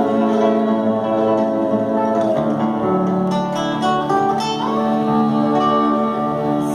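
Instrumental music: acoustic guitar playing over held chords, with no singing.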